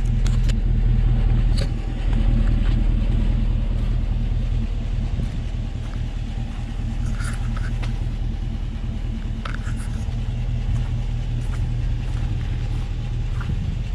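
An engine running steadily, a low even hum, with a few faint clicks or knocks over it.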